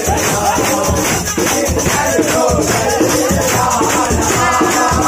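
Group of men singing a Mappila kaimuttipattu, a Malabar wedding clapping song, with hand claps and drum strokes keeping a steady beat.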